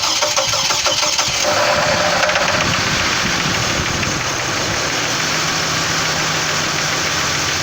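Chevrolet Trailblazer's 4.2-litre Vortec inline-six just after start-up, catching unevenly for about the first second and a half, then settling into a steady idle. The owner is trying to diagnose a knock in this engine.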